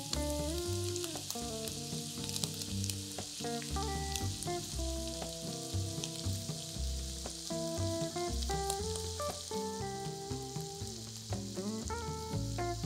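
Ground meat and onions sizzling in a stainless steel frying pan, with a few sharp clicks of a utensil against the pan. Background music with stepped notes and a bass line plays under it.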